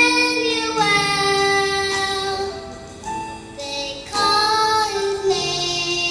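A young girl singing a solo into a microphone, holding long notes in a smooth melody. A phrase fades around three seconds in, and a new, louder phrase begins just after four seconds.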